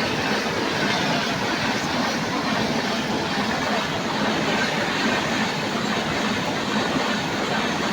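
Express passenger train running through a station at speed without stopping: a steady, loud rush of coaches and wheels on the rails.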